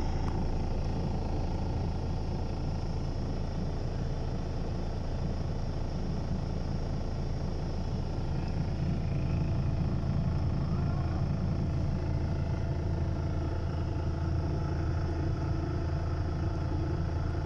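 MAN concrete mixer truck's diesel engine running steadily, a low even hum.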